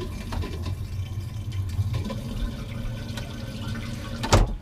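Sealand (Dometic) RV toilet being flushed: water rushes steadily into the bowl, then a sharp clunk near the end as the flush closes off. It is the test flush after a new vacuum breaker has been fitted.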